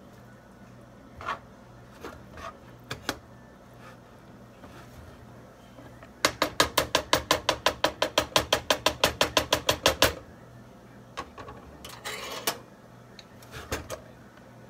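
Wooden spoon knocking against a black skillet of fried rice while stirring: a few scattered knocks, then a fast even run of strikes, about six a second for roughly four seconds, then a scrape and a few more knocks.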